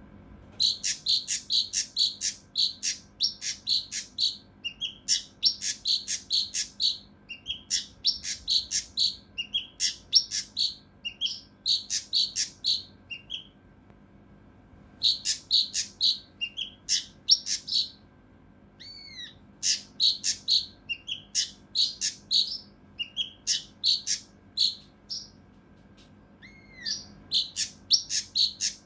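Kinoi (cucak rante mas) songbird singing in rapid runs of sharp, harsh notes, about three to four a second, in phrases with short pauses between them, with a few gliding notes mixed in. These are the rough, dense 'shots' (tembakan) prized in contest-bird training.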